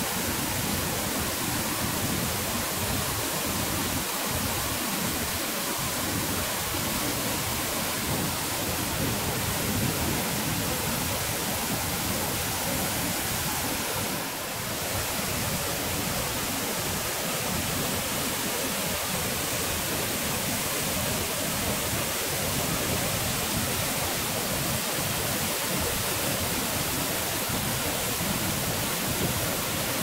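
Ousel Falls, a waterfall in spate, heard close up from its base: white water pouring over the rock ledge and crashing into the pool as a steady, unbroken rush.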